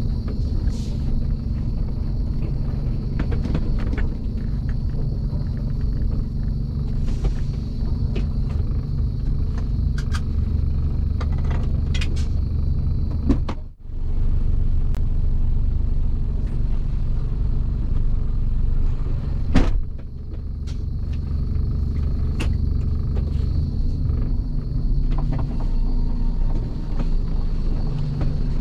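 Mercedes-Benz Actros truck engine running steadily, heard from inside the cab as the truck rolls over a rough quarry track, with a few sharp knocks and rattles from the cab over the bumps. The sound drops out briefly about halfway.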